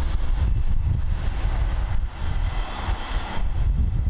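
Wind buffeting the microphone with a heavy low rumble, while a Class 158 diesel multiple unit approaches and its engine and rail noise grow over the last couple of seconds.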